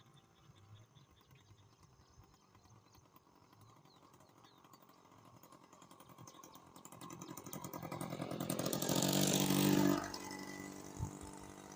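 A motor vehicle's engine approaching and passing close by, growing louder over several seconds, then dropping away sharply about ten seconds in.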